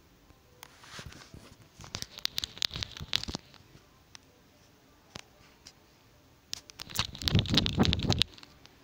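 Rustling and sharp clicks in two short bursts, about two seconds in and again about seven seconds in, with quiet room tone between.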